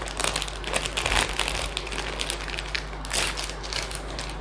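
Clear plastic packaging sleeve crinkling and crackling as a clutch purse is slid out of it, a dense run of sharp, irregular crackles.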